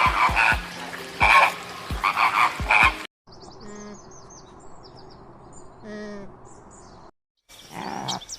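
Animal calls: a loud run of calls with low thuds over the first three seconds, then two short rattling croaks about two seconds apart, with faint high bird chirps behind them.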